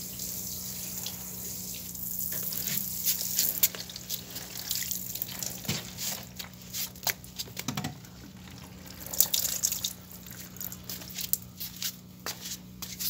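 Water pouring from a plastic watering can and splashing onto a potted plant and wet floor for the first few seconds, then giving way to irregular drips and splats as the can trickles.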